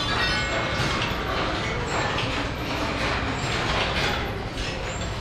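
Balls rolling and clattering through the wire tracks of a large rolling ball sculpture, with scattered clicks and knocks over a steady noisy background.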